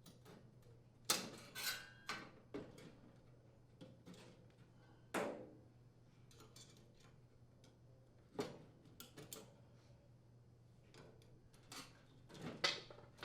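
Faint, scattered clicks and clacks of plastic spark switches being pried off the gas range's burner valves with a small flathead screwdriver. A few sharper snaps come about a second in, around five and eight seconds, and near the end.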